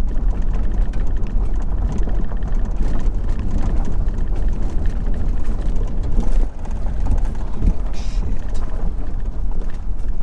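2001 Corvette V8 running and tyre and road noise while driving, heard inside the car as a loud, steady low rumble with small knocks and rattles from bumps.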